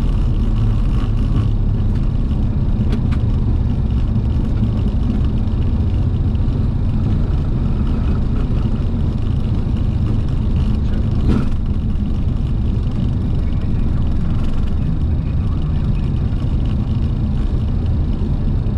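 Boeing 737-800 on its landing rollout, heard from the cockpit: a steady low rumble from the engines and the wheels rolling down the runway. A single sharp click comes about halfway through.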